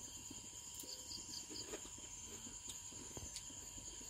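Crickets chirring steadily at a high pitch, with a short run of four quicker chirps a little higher up about a second in.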